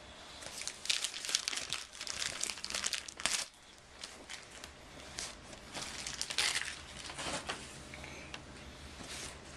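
Packing material crinkling and rustling as a package is opened by hand, in irregular bursts that are busiest in the first few seconds and again around the middle.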